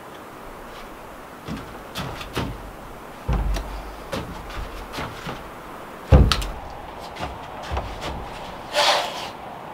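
Knocks and thumps of a wooden plank countertop panel being tipped and shifted on a tarp over a wooden porch floor, with one heavy thump about six seconds in and a short rustle near the end.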